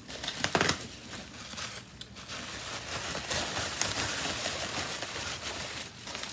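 Packaging being handled and rummaged through: rustling and crinkling with a few sharp knocks and clicks near the start.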